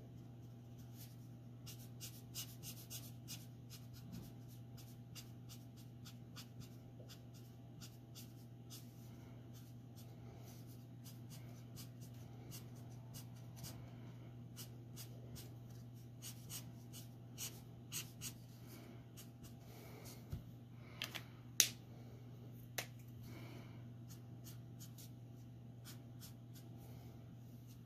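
Faint scratching and tapping of a Copic alcohol marker's nib on paper in short, quick strokes, over a steady low hum. A sharper click stands out about two-thirds of the way through.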